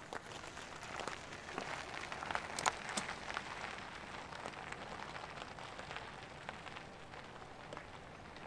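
Bicycle tyres crunching and crackling over a loose gravel road, loudest about two to three seconds in as the loaded touring bikes pass, then fading away.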